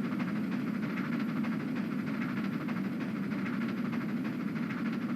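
Southern Pacific Daylight excursion train rolling past: a steady rumble and rattle of wheels on the rails.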